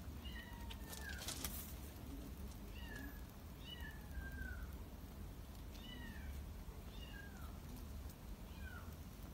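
Kittens mewing: short, high-pitched calls that fall in pitch, about seven of them. A brief noisy rustle sounds about a second and a half in.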